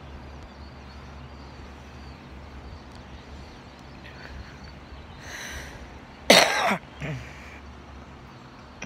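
A person coughs about six seconds in: one short, loud cough with a softer one just after, over a steady low background hum.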